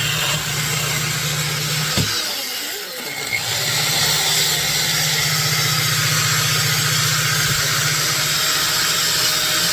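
Electric power tool motor running steadily with a rough hiss, easing off briefly about two to three seconds in before running on.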